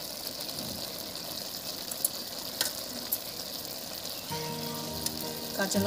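Oil sizzling steadily under shredded bottle gourd in a wide aluminium wok, a continuous high hiss with a few light clicks. Held musical tones come in faintly a little past four seconds in.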